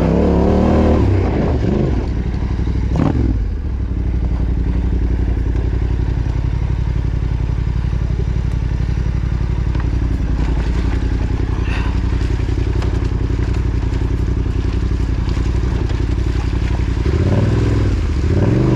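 Yamaha Ténéré 700 parallel-twin engine running steadily at low revs, with short throttle revs about a second in, around three seconds in and again near the end.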